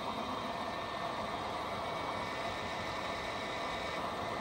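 Steady mechanical hum and hiss of running workshop machinery, unchanging throughout.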